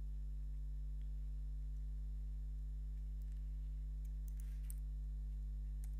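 Steady low electrical hum. A few faint computer keyboard key clicks come about four seconds in.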